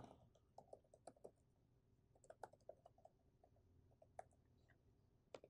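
Faint keystrokes on a laptop keyboard: about a dozen soft, separate clicks as a password is typed, in small groups with pauses between.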